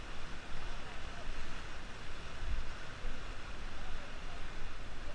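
Rushing river water around a raft, with wind buffeting the microphone in a steady low rumble.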